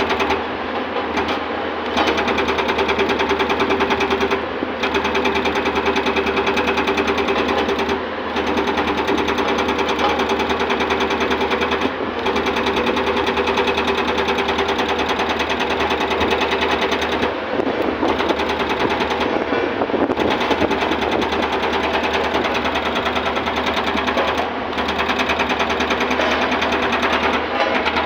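Hydraulic rock breaker on a Tata Hitachi EX210 excavator hammering rock in rapid, steady blows, stopping for a moment every few seconds as it is repositioned.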